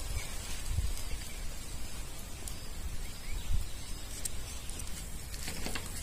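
Wind rumbling unevenly on the microphone outdoors, with a faint hiss and a few faint ticks over it.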